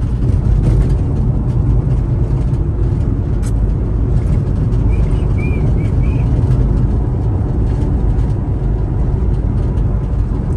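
Steady low rumble of a car driving, heard from inside the cabin: engine and tyre-on-road noise.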